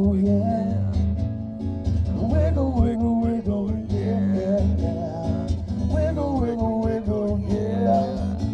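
Band music with guitar and a steady bass line under a wavering melody line, in a country style.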